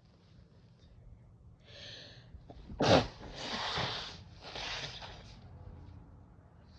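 A person with cold congestion sneezing after taking chhinkni sneezing powder: a short breathy intake, then one sudden, loud sneeze about three seconds in, followed by two long, noisy breaths.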